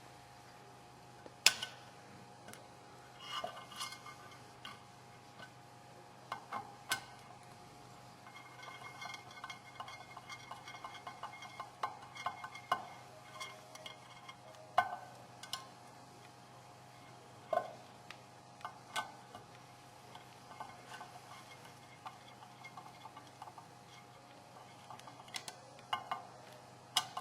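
Scattered light metallic clicks, taps and clinks of hand tools and screws on a Buell 1125 stator and its alternator cover while the stator is fitted and screwed in, over a steady low hum.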